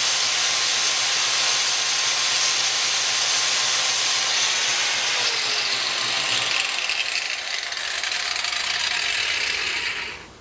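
Sanding disc held against a spinning wheel lip driven by an electric motor: steady abrasive hissing over a low motor hum. The hum drops out a little past halfway, and the sanding cuts off shortly before the end. The sanding is smoothing out bumps left in the lip by a flap disc.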